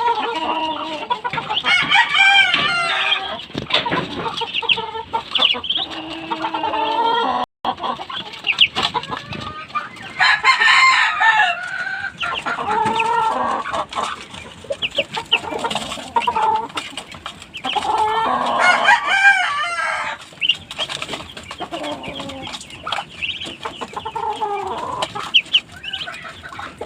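Poultry calling: repeated clucking and several longer, drawn-out calls, some of them crowing. The sound drops out for a moment about seven seconds in.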